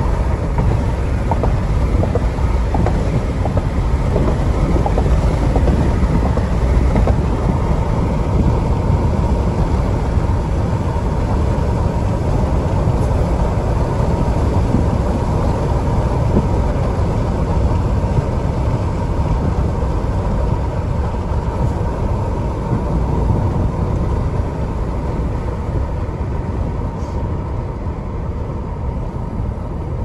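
A bus driving along, heard from inside the cabin: a steady low rumble of engine and road noise, with a thin, constant whine running over it.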